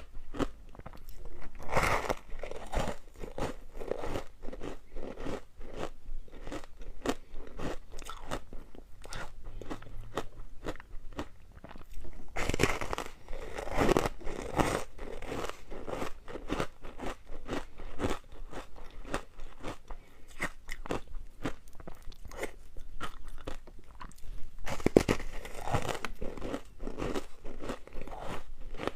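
Hard ice being bitten and chewed close to the microphone: a dense run of crunching and cracking, with louder clusters of crunching near the start, about halfway through and near the end.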